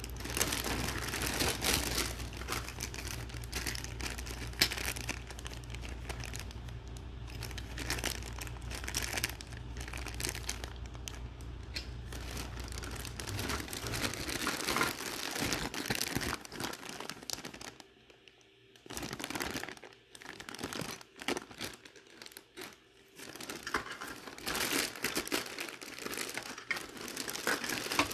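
Clear plastic packaging bag crinkling as hands handle and open it, steady at first and then in shorter bursts with brief pauses in the second half.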